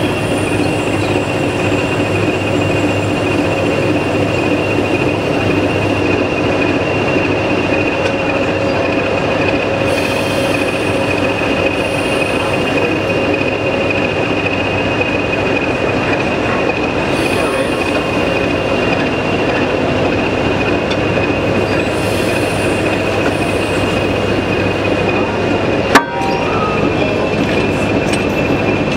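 Class 20 diesel locomotive's English Electric eight-cylinder turbocharged engine running steadily, with a constant high turbocharger whine over its low rumble. A single sharp click about 26 seconds in.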